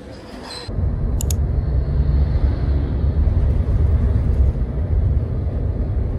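Steady low rumble of engine and road noise inside a moving taxi's cabin, starting suddenly just under a second in. A couple of brief high ticks come about a second in.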